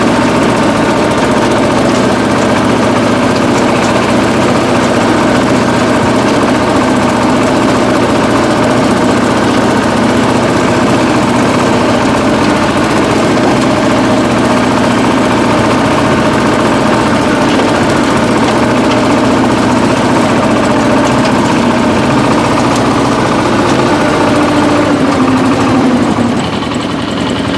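Shifeng-240 mini tractor's 24 hp water-cooled engine running steadily under load, driving a rotary tiller through the soil. The engine note shifts and eases slightly near the end.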